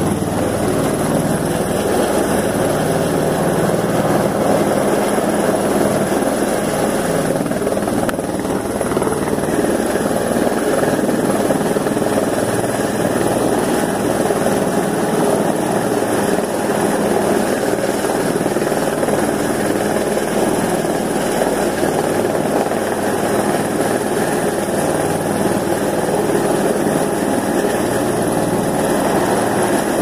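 Rescue helicopter overhead at close range, its rotor and engine running at a steady, loud level with a fast, even rotor chop.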